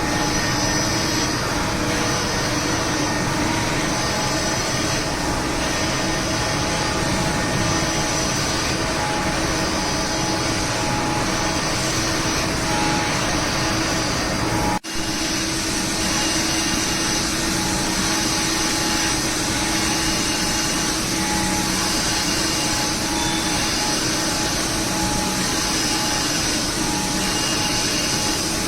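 CNC grinding machine running steadily while grinding steel, a constant machine noise with a steady hum and whine. It drops out for a moment about halfway through.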